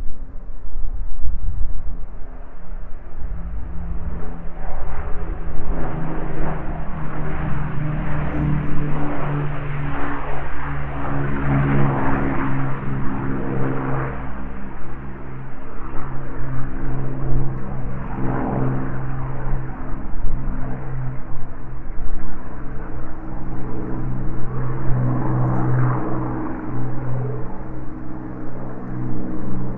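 The four Rolls-Royce Merlin V12 engines of an Avro Lancaster bomber in flight, a continuous propeller-engine drone. It swells and fades several times, and its pitch drops a little about a third of the way in as the aircraft passes.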